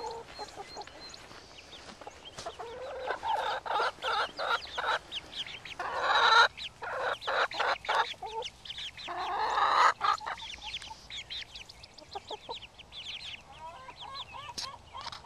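Hens clucking and squawking, with a few louder bursts in the middle, and chicks peeping high-pitched over them; near the end a hen gives a run of evenly repeated clucks.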